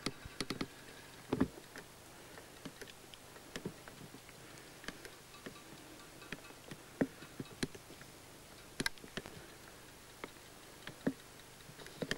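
Scattered, irregular light clicks and knocks, a cluster of them near the start and then one every second or so, over a faint steady hiss.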